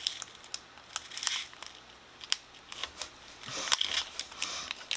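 Plastic or foil packaging crinkling as it is handled, in a few short spells, with scattered sharp clicks and taps in between.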